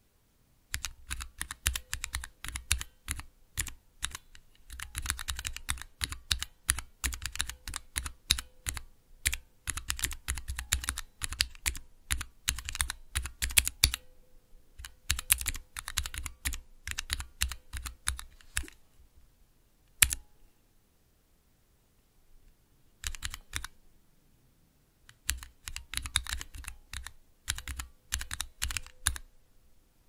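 Typing on a Cherry MX mechanical keyboard: fast runs of clacking keystrokes broken by short pauses. One single hard keystroke about two-thirds of the way through is the loudest, and the typing then resumes in two shorter runs.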